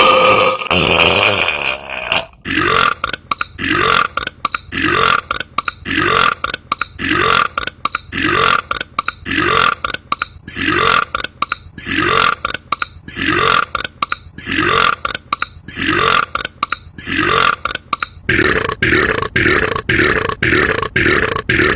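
A man belching: one long belch, then a steady series of short belches, each rising in pitch, about one a second, quickening to about two a second near the end.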